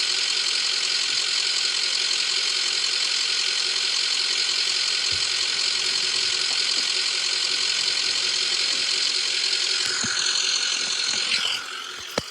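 An ambulance idling: a steady, rattling, whining mechanical hum that winds down and cuts out near the end.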